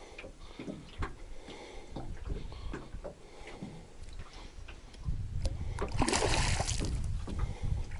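Water splashing as a hooked sazan (wild common carp) fights at the surface on the line, after a few seconds of scattered light knocks; the splashing is loudest about six to seven seconds in.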